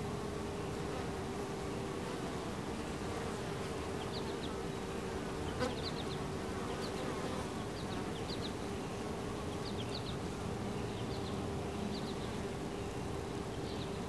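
Honey bees buzzing at a hive entrance, a steady, even hum from many bees coming and going.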